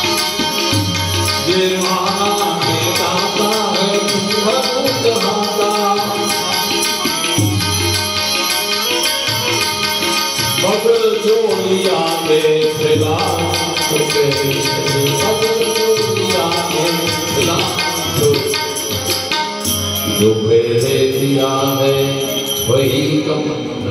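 A man singing a Hindi devotional song, accompanying himself on a harmonium, with percussion keeping a beat. The harmonium's held reed chords run throughout and the voice comes in and out in phrases.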